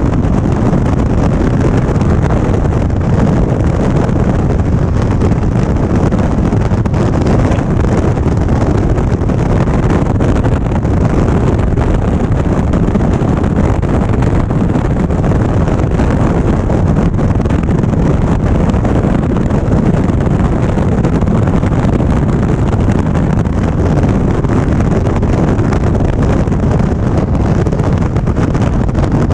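Wind rushing over the microphone of a moving Indian Springfield motorcycle, with the bike's running and road noise beneath, at a steady cruising speed.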